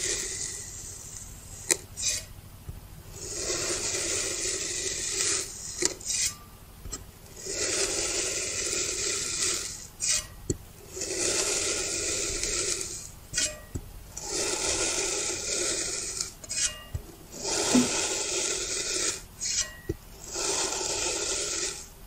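Kitchen knife slicing down through a block of kinetic sand: a crunchy, gritty hiss about two seconds long for each cut, repeated about seven times at even spacing. Short clicks fall between the cuts.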